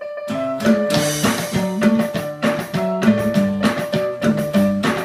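Kawai electronic keyboard played with a full backing: a steady drum beat, bass line and chords come in about a third of a second in, under a repeated high note.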